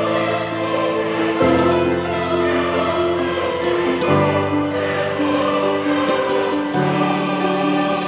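Background music: a choir holding slow sustained chords that change about every three seconds.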